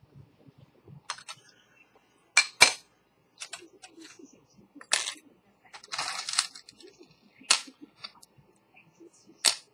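Sharp metallic clicks and clinks of small metal parts and tools being handled on a watchmaker's bench, about eight spread out, the loudest a close pair about two and a half seconds in. A short rasping noise about six seconds in.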